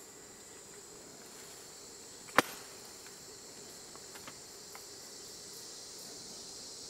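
Steady high-pitched drone of forest insects, with one loud sharp click about two and a half seconds in and a few faint ticks a couple of seconds later.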